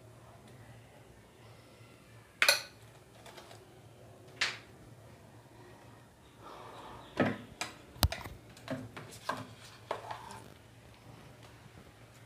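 A metal spoon clinks and taps against small steel bowls in irregular sharp knocks, one louder knock about eight seconds in, over a faint steady low hum.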